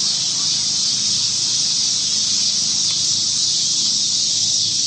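Steady, high-pitched drone of a summer insect chorus, unbroken throughout.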